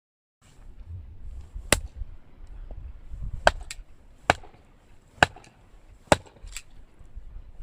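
A series of sharp chopping strikes, about seven, coming irregularly a half second to a second apart, over a low rumble.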